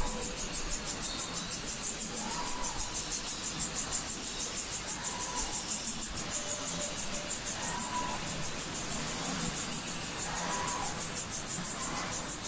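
Flatbread sheeting-line machinery running: a steady high-pitched whine that pulses rapidly several times a second, with a fainter soft sound recurring about every two and a half seconds.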